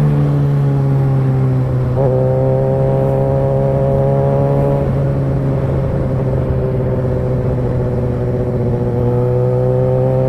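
Kawasaki ZX-6R's inline-four engine running at cruise on the road, heard from the rider's seat. The engine note steps up about two seconds in, sags gradually, then rises again near the end as the throttle changes.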